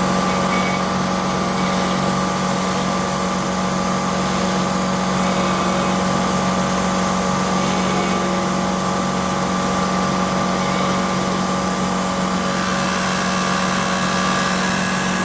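Milling machine running steadily: a constant motor hum with several fixed tones that holds the same level throughout.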